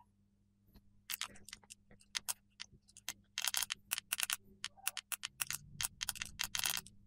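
Sharp, irregular clicks and taps in quick clusters, starting about a second in, as fingers press the hardware buttons of a handheld digital audio player.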